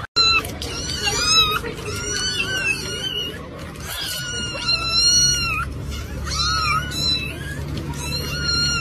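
Kittens meowing over and over in short, high-pitched calls, with one longer drawn-out meow about the middle, begging for a treat.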